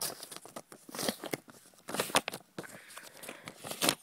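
A paper mail envelope being torn open and rustled in the hands, in several short bursts of tearing and crinkling, the loudest about two seconds in and near the end.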